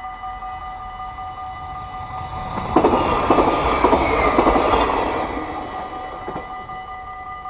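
A Stadler GTW electric multiple unit passes through the level crossing. A loud rush of wheel and rail noise comes in suddenly a little under three seconds in and fades over the next few seconds. Under it, the crossing's warning bells ring steadily throughout.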